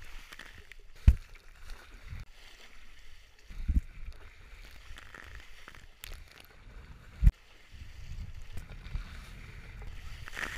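A rider sliding down a fiberglass water slide: a steady rush of water and body on the slide surface, broken by three dull thumps about one, three and a half, and seven seconds in.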